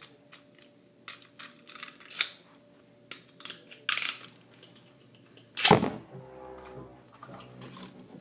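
Light clicks and knocks, then a little past halfway a loud sharp launch-and-landing as a Beyblade spinning top hits the plastic stadium. It then spins on with a steady low whir.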